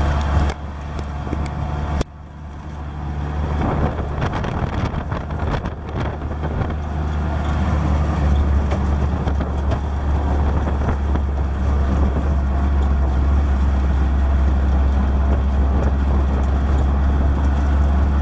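Auto-rickshaw engine running as the three-wheeler drives along a road, heard from inside the open passenger cabin as a steady low drone with road and wind noise. The level drops suddenly about two seconds in and then builds back up.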